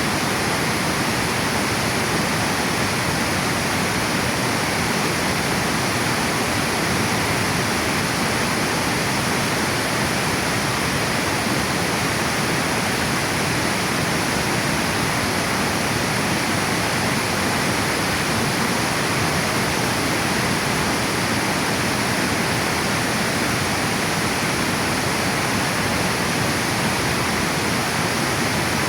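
Water falling over a river dam: a steady, unbroken rush that does not change in level.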